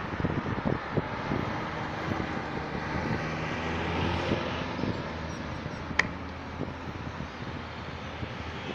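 Road traffic, with cars passing close by and their tyre and engine noise. An engine's hum stands out in the middle, and there is a sharp click about six seconds in.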